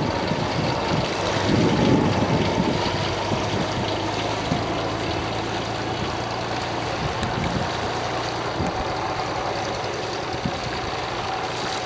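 Small outboard motor of a Rescue Minor skiff running steadily under way, a low, even hum that gets a little quieter as the boat heads away. Wind gusts on the microphone in the first couple of seconds.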